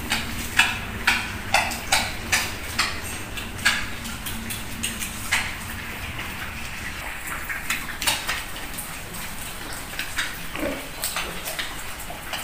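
Young pigs feeding and rooting on a wet concrete pen floor: a run of short, sharp clicks and smacks, about two a second at first and sparser later, with a brief low grunt near the end.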